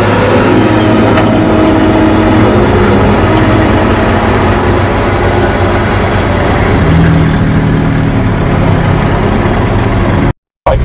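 Heavy road-vehicle engines running steadily with road noise, heard from inside a vehicle as a log-laden logging truck passes close by; the engine pitch shifts about seven seconds in. The sound cuts off abruptly near the end.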